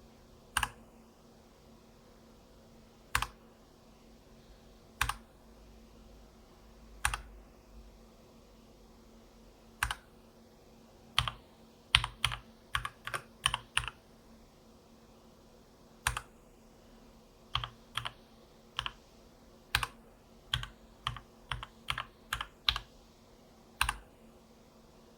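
Keys pressed one at a time on a Keychron K8 mechanical keyboard: single clacks a second or more apart at first, then quicker runs of several presses near the middle and again toward the end.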